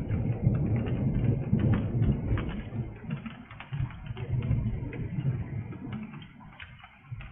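Thunder rolling in a low rumble that fades away over several seconds, with rain dripping in irregular ticks.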